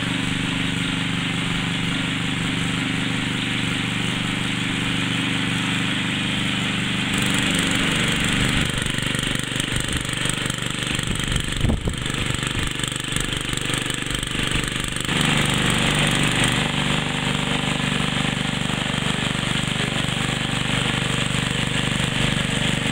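Small gasoline engine of a walk-behind rototiller running steadily under load as its tines churn through garden soil, the engine tone shifting a couple of times along the way.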